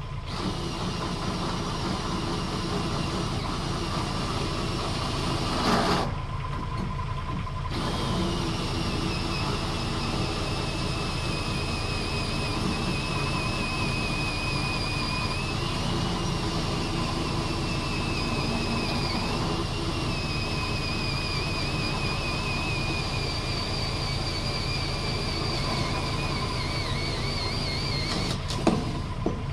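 Hand-held power drill whining as it works into the top of a steel heating-oil tank, its pitch wavering under load; it stops about six seconds in and starts again about two seconds later, running until near the end. Underneath, the steady idle of a Kubota mini excavator's diesel engine.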